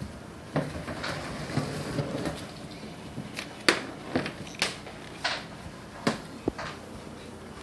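A string of short knocks and bumps with scuffing and rustling as a child climbs up the front of a kitchen refrigerator, the sharpest knocks about four and six seconds in.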